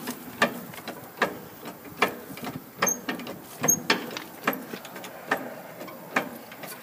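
Hand pump of a Mack MH633 cab-over truck's hydraulic cab-tilt being worked to raise the cab: a sharp click with each stroke, a regular beat of about one click every 0.8 seconds.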